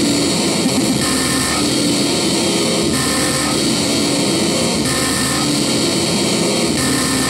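Harsh experimental noise music: a dense, loud wall of hissing noise with a few faint held tones underneath. The texture changes abruptly every second or two.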